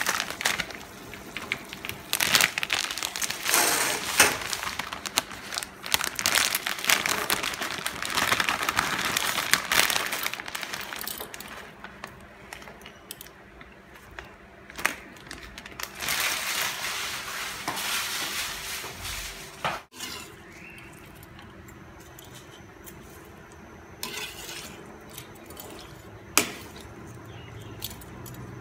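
Cooking at a stainless steel pot: boiling water bubbling and hissing, dry spaghetti clattering against the pot as it goes in, and clinks of a metal slotted spoon against the pot while the pasta is stirred. The last third is quieter, with a few single knocks.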